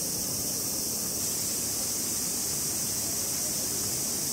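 Steady outdoor evening ambience: an even, high-pitched hiss with a low background rumble, and no distinct events.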